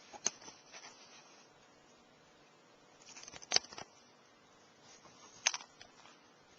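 Handling noises from the feeding: a few sharp clicks and taps in three short groups. They come about a third of a second in, in a cluster about three and a half seconds in (the loudest), and again about five and a half seconds in.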